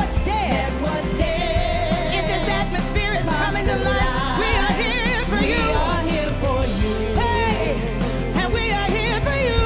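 Live worship band playing a praise song, with a singer holding long notes that waver in pitch over a steady bass.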